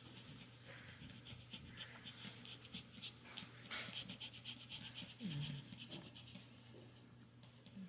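Newborn Morkie puppy breathing in quick, short puffs, faint and rapid.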